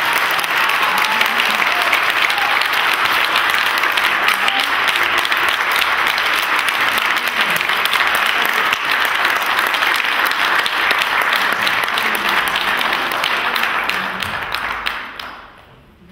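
Audience applauding steadily, the clapping dying away over the last two seconds.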